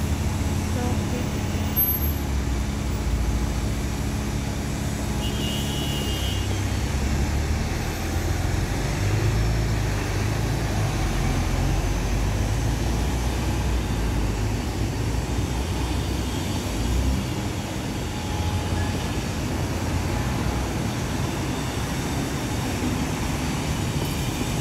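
Road traffic: vehicle engines running and passing, a steady low rumble, with a brief high-pitched tone about six seconds in.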